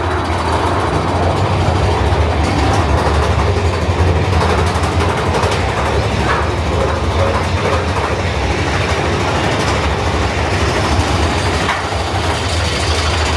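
Big Thunder Mountain Railroad mine-train roller coaster running along its track through a rock tunnel, a steady loud rumble with a deep low drone underneath.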